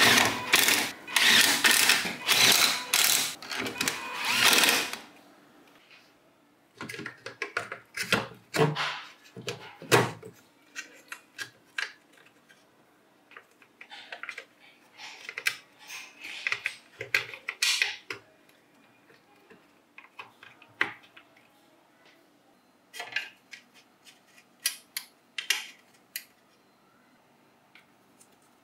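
Hand work on tool parts at a workbench: about five seconds of harsh scraping at the start, then scattered clicks, taps and short scrapes as parts are handled.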